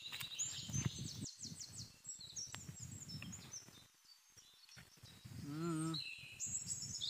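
Birds chirping and twittering in the trees, many short quick high chirps and trills, over a soft rustle of breeze in the leaves. About five and a half seconds in there is a brief low hum, like a person's voice.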